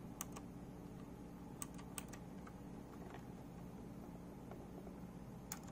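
Keys of an HP Omen Sequencer mechanical keyboard with optical-mechanical blue switches being pressed one at a time: a few faint, separate clicks at irregular intervals, with a pair close together near the end.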